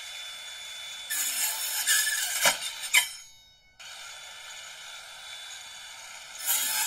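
DeWALT Atomic 20V 4-1/2-inch cordless circular saw with a brushless motor, whining as it runs, then louder and rougher as it cuts through a wooden board about a second in, with two sharp knocks. The motor spins down, starts again about a second later and runs steadily, getting louder as the blade bites into the wood near the end.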